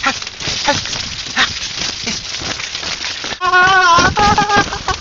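Corn stalks and leaves rustling and swishing as someone pushes fast through a dense corn field, with short panting cries from the person. About three and a half seconds in, a louder held pitched sound with a wavering pitch takes over.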